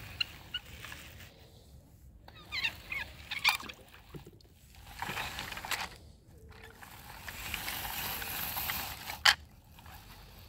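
A plastic toy car-carrier truck loaded with die-cast cars is handled and pushed over artificial turf. Scattered plastic clicks and knocks, the sharpest near the end, come with a soft brushing rustle as it moves.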